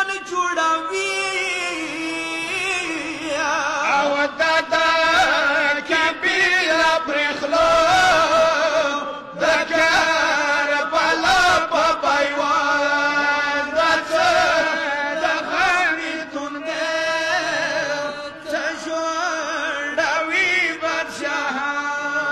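A male reciter chanting a Pashto noha, a Shia mourning lament, in long wavering held notes.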